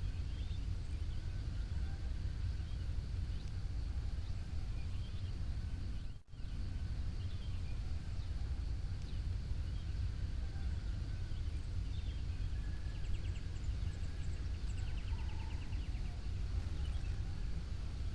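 Dawn chorus of birds: scattered faint chirps and a few short rapid trills from several birds, over a steady low rumble. The sound briefly drops out about six seconds in.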